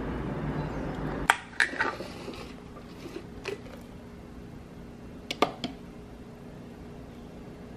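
Tableware clinking and knocking in a few short, sharp strikes: a quick cluster of three about a second and a half in, a single one a couple of seconds later, and another cluster of three past the middle.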